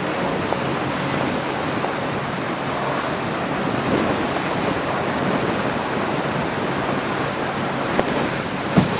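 Water rushing past a moving boat on the river, with wind on the microphone and a low steady hum underneath. Two brief knocks near the end.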